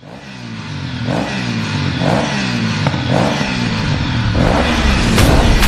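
Ringtone music fading in from silence: a low synth bass swoops up and down in a steady repeating pattern, with a soft hit about once a second and sharp beats coming in near the end.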